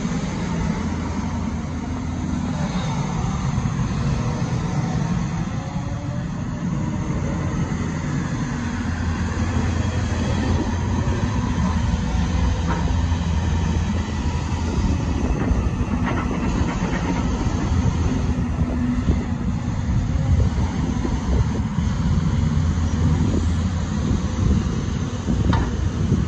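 Diesel engine of a Hyundai R230L crawler excavator running steadily with a low rumble.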